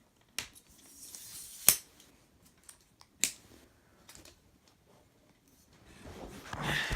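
Handling a new tripod: a few sharp plastic clicks, the loudest about one and a half seconds in after a short rustle, another about three seconds in, then a longer rustle near the end.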